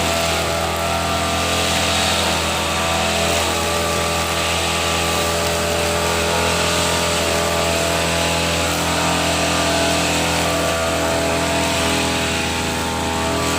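Petrol brush cutter (grass trimmer) engine running steadily under load, an even buzzing drone as it cuts grass.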